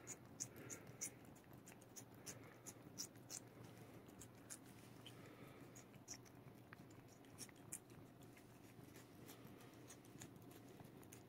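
A cat licking a paste treat from a squeezed tube: faint, quick wet tongue clicks, a few a second at an uneven pace.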